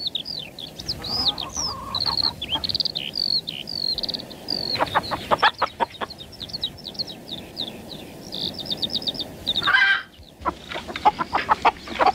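Small birds chirping and twittering steadily, with hens clucking in quick runs about five seconds in and again near the end. Just before the second run comes a louder hen cry.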